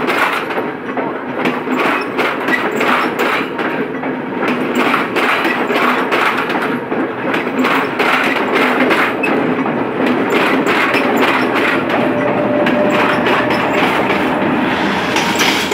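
Sri Lankan intercity passenger train's coaches passing a level crossing, the wheels clacking over the rail joints in a fast, steady stream of clicks.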